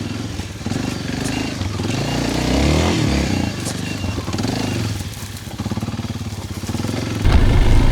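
Motorbike engine running as it is ridden, its pitch rising and falling, and growing louder near the end.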